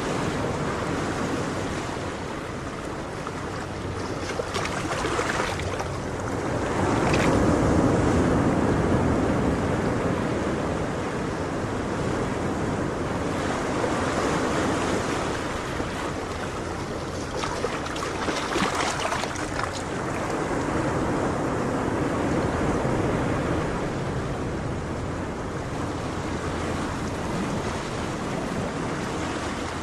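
Ocean waves breaking on a shore: a steady rushing of surf that swells and eases several times, loudest about a quarter of the way in.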